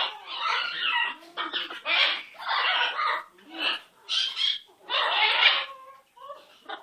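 Pet parrot squawking and grumbling in about ten short, harsh bursts while nipping at a finger in play.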